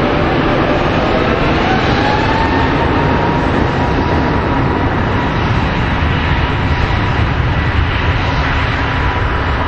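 Airbus A321neo twin turbofan engines at takeoff power on the runway roll: a heavy steady roar with a whine that rises over the first couple of seconds as the engines spool up, then holds steady.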